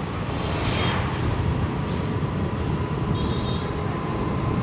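Motor scooter riding through busy city traffic: steady engine and road noise with a dense low rumble. Two short high tones come through, about half a second in and again about three seconds in.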